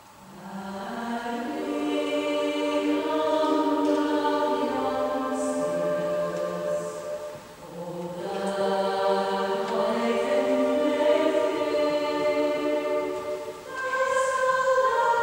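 Women's choir singing a sacred piece, the sound ringing in a reverberant church. The voices swell in from the start and move in long held chords, with short breaks about halfway and near the end.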